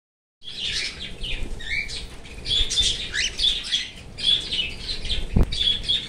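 Cockatiels squabbling over a green leaf: a rapid run of short, shrill chirps and screeches, one over another. A single knock sounds a little after five seconds.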